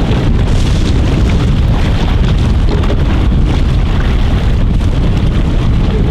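Strong wind buffeting the microphone: a loud, steady low rumble with a hiss above it.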